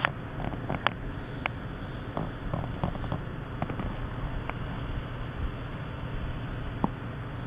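A sleeping baby snoring softly through a nose blocked by allergy and a runny nose, over steady background noise, with a few faint clicks.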